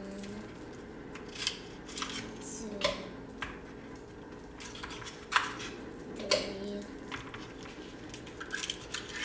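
Ice cubes being pried out of a plastic ice cube tray and dropped one by one into a blender cup of cut fruit: a string of separate sharp clicks and clatters.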